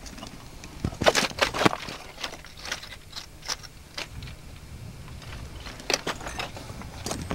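Footsteps scrambling over loose boulders: irregular crunches, scrapes and clinks of rock underfoot, with a quick cluster about a second in and more near the end.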